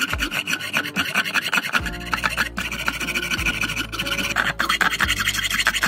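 Hacksaw blade rasping back and forth across the steel hex of a spark plug held in a vise, over background music.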